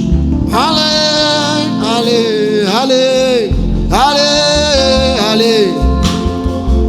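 Trumpet playing a gospel melody with scoops up into its notes and falls off at the phrase ends, over a band backing.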